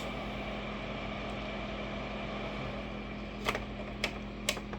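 Steady fan-like hum with a constant faint tone from the running power station and heaters. Near the end come three sharp clicks about half a second apart, a switch being pressed to cut one heater off.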